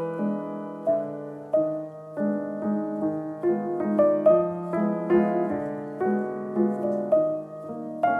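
Background music: slow piano, notes struck one after another at an even pace.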